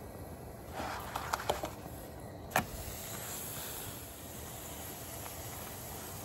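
Flatbread frying in a nonstick pan with a steady hiss, while a spatula gives a few light clicks against the pan, then one sharp clack a little over two and a half seconds in as the bread is turned.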